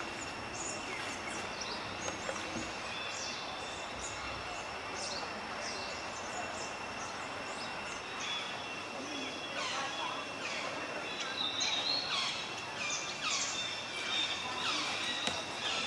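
Tropical forest ambience: birds chirping in short, quick downward notes over a steady high-pitched insect whine. The chirps become more frequent about halfway through.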